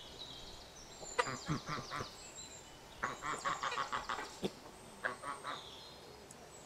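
Domestic geese honking in quick runs of short, repeated calls, coming in three bursts.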